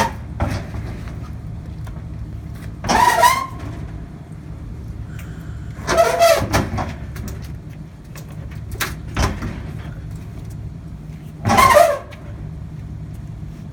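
A steady low hum like an idling vehicle engine, broken three times by loud, short screeching bursts.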